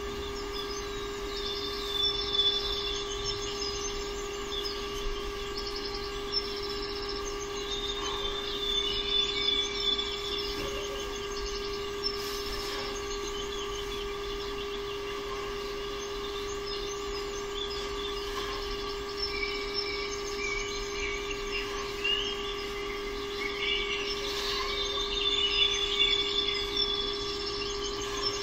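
Birds chirping in short bursts, over a steady electrical-sounding hum.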